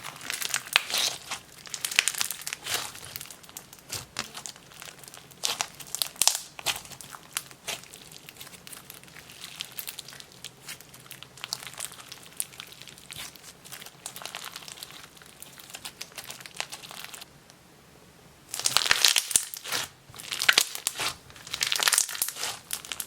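Clear fishbowl slime full of fishbowl beads being squished and stretched by hand, giving dense crunchy, crackling clicks in bursts. It pauses briefly about three-quarters of the way through, then crunches louder near the end.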